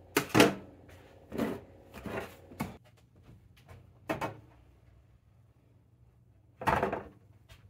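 Kitchen handling noises: a handful of sharp knocks and clatters, the loudest about half a second in and a longer one near the end. They come as a glass baking dish is handled at the oven and set on a wire cooling rack.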